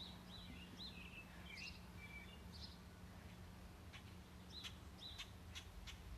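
Faint bird chirps: a run of quick rising-and-falling chirps in the first few seconds, then a few short sharp chirps near the end, over a steady low hum.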